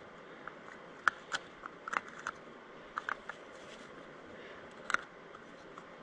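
Light plastic clicks and taps, irregular and scattered, as a blue plastic cover is handled and fitted back onto the spring cassette of a Honda S2000 seat belt retractor.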